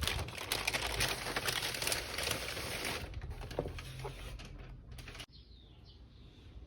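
Packaging being handled and unwrapped: dense crinkling and rustling for the first three seconds, then a few scattered taps and clicks that stop about five seconds in.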